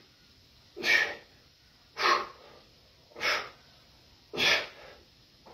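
A man breathing out hard in short bursts, one with each barbell bench-press rep, four times at an even pace of about one every 1.2 seconds.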